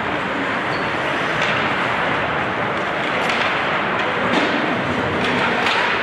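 Ice hockey play: a steady rush of skates on ice and rink noise, with about five sharp clacks of sticks and puck.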